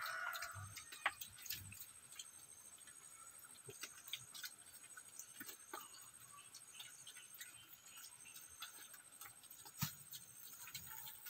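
Faint outdoor ambience: a steady high-pitched drone, as of insects, with scattered small ticks and clicks. One click comes about a second in and a louder one near the end.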